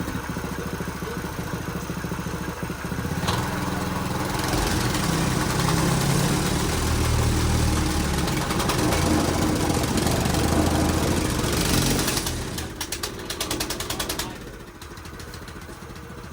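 Engine running. It grows louder about three seconds in, flutters briefly, and drops back sharply near the end.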